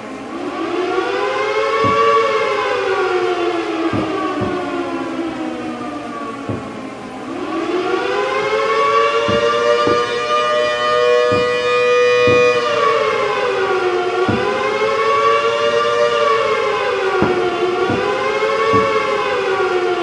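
1960s W.S. Darley Model 2T dual-tone civil defense siren, a 2 hp motor siren, wailing in two close tones. It rises and falls once slowly, climbs again and holds steady for a couple of seconds, then swings up and down faster in a fast wail.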